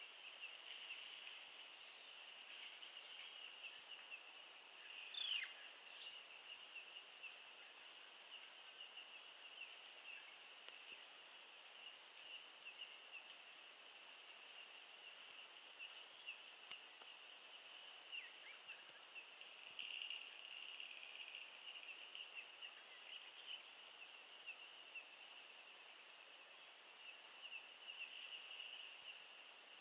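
Faint forest insect chorus, a steady high-pitched drone, with a few brief bird calls over it, one a quick downward whistle about five seconds in.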